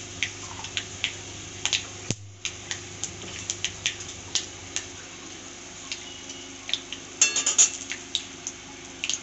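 Panch phoron seeds, dried red chillies and bay leaves frying in hot mustard oil in a kadhai, with irregular scattered pops as the seeds splutter. About seven seconds in comes a quick run of clatters, a metal spatula against the pan.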